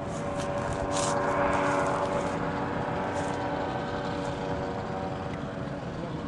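Steady drone of a small aircraft engine running at a constant speed, with a few faint high clicks about one and three seconds in.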